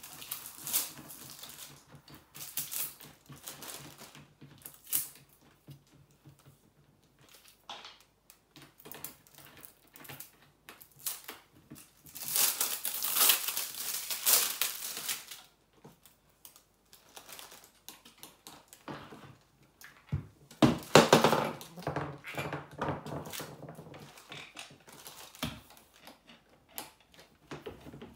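Plastic packaging crinkling, with scattered light clicks and knocks from wooden table legs and plastic caps being handled and fitted. The crinkling is loudest for a few seconds about halfway through, with a burst of knocks and crackle a little later.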